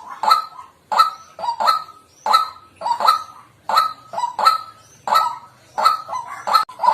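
White-breasted waterhen calling: a loud, harsh 'kwak' repeated steadily about every 0.7 seconds, some notes given as quick doubles.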